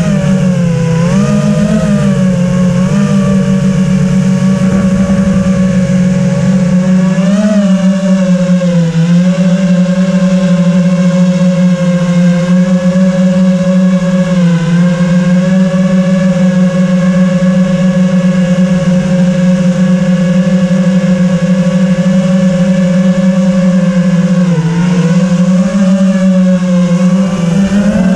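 FPV drone's brushless motors and propellers buzzing at a steady high pitch, with a few brief dips and wobbles in pitch as the throttle is eased and reapplied.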